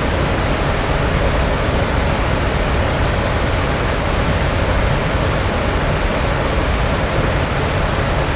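Steady, even rushing noise with a deep rumble underneath, unchanging throughout.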